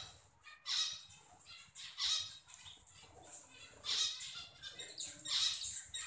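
Budgerigars chattering: a string of short squawks and chirps, one or two a second, busiest near the end.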